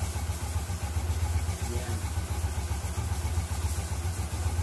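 Motorcycle engine of a tricycle idling steadily, with an even, fast low putter.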